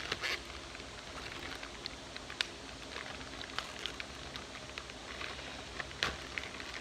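Packaging being cut and worked open with a knife: irregular crinkling and crackling with a few sharper clicks.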